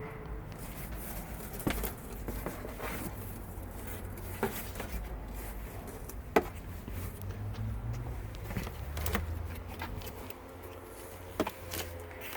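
Dresses being handled: light rustling and about five sharp clicks spread out over a few seconds each, over a low steady hum.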